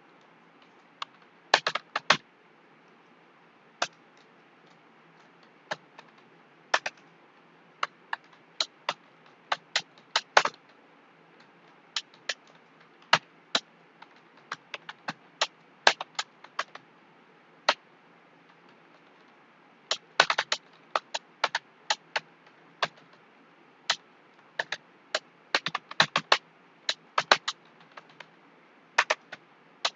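Computer keyboard keystrokes from someone typing a passage at an uneven pace. The clicks come singly and in quick clusters with brief pauses between words.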